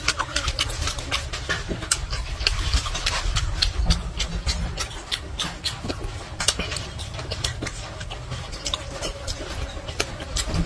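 A person chewing meat with the mouth open, with many wet smacks and clicks of lips and tongue coming a few times a second, over a steady low rumble.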